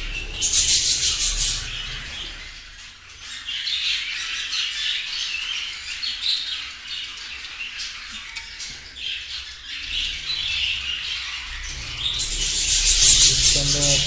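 A colony of budgerigars chirping and calling, many birds at once, with louder stretches about half a second in and again near the end.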